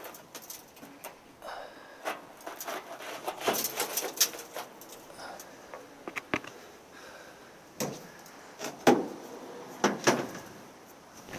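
Hand work on the windshield frame of a 1941 Ford pickup while the divider bar and old rubber seals are worked loose: scattered scrapes and clicks, with three sharper knocks in the second half.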